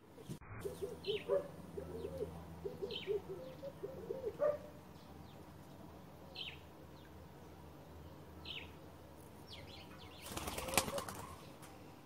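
A dove cooing in a run of low, arching notes for the first few seconds, while a small bird gives a short, high, falling call every couple of seconds. About ten seconds in comes a burst of wing flapping lasting about a second.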